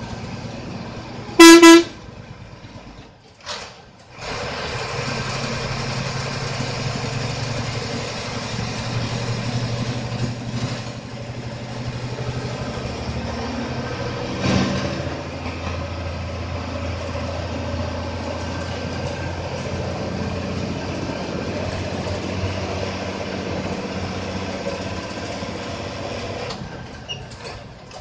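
Bus engine running steadily with road noise, heard from inside the cabin, with one short, loud horn blast about a second and a half in. The engine noise drops away briefly around three to four seconds in and again near the end.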